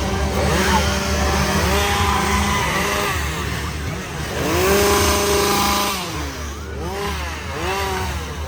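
Chainsaw engines revving over and over, several at once, their pitch swinging up and falling back, with one rev held high for about a second and a half near the middle.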